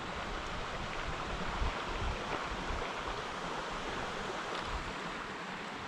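Steady rushing outdoor noise with irregular low buffeting of wind on the microphone.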